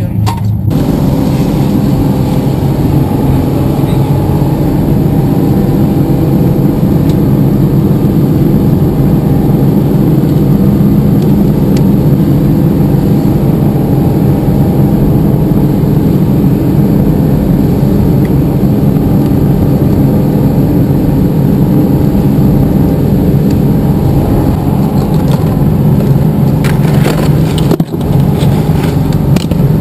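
Party fishing boat's engine running with a steady low rumble, with a few brief knocks near the end.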